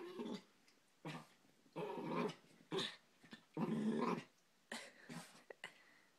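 Miniature pinscher growling in a string of short bursts, about six in the space of a few seconds: play growling at a cat.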